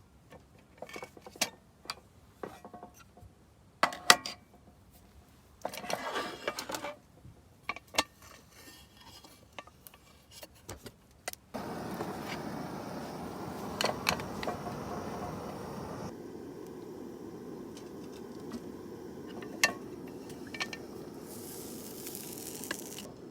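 Cookware and utensils being handled: scattered light clinks and knocks, then a steady hissing noise sets in suddenly about halfway, with a few more knocks over it.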